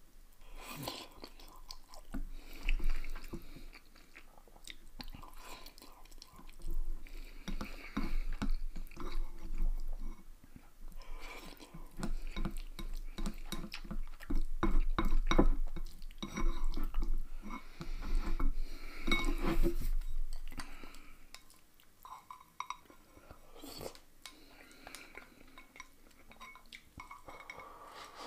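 Close-up eating sounds of instant noodles: slurping and chewing, with occasional light clinks of chopsticks against a glass bowl. Busiest and loudest in the middle stretch.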